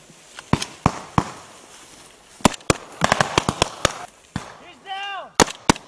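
Small-arms gunfire: scattered single shots, then a quick string of about eight shots in the middle, and two more sharp shots near the end. A man shouts briefly just before those last shots.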